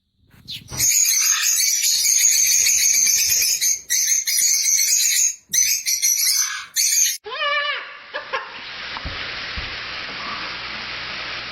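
A parrot screeching loudly in long, harsh calls for about six seconds, broken twice. Then come a few short meow-like calls that rise and fall, over a steady hiss.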